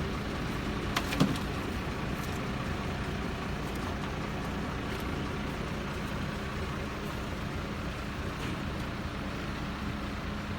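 An engine running steadily, with a couple of sharp knocks about a second in.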